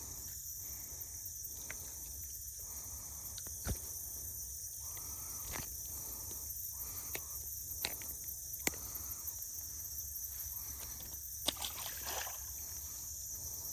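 Steady high-pitched chorus of insects in the summer countryside, with low wind rumble and a few sharp small clicks and knocks scattered through it.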